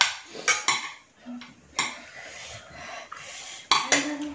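Spoons clinking against ceramic plates and bowls on a dining table, a handful of separate sharp clinks.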